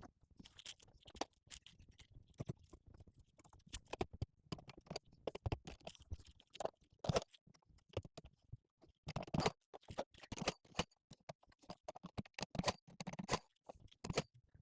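Irregular clicks, taps and scrapes of hand work on the dog bed's timber, with no power tool running.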